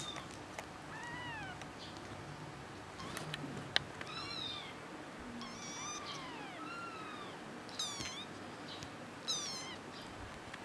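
Young kitten mewing repeatedly: short, high mews that rise and fall in pitch, with two sharper, louder cries near the end. There is one sharp click a little over a third of the way through.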